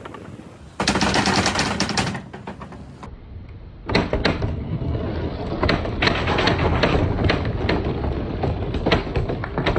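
A crowd of hard balls rolling down a wooden marble-run track, clacking rapidly against each other and the wood. A dense rush of clacks comes about a second in, then thinner clicking, and from about four seconds in a continuous rolling rumble thick with clicks as many balls run together.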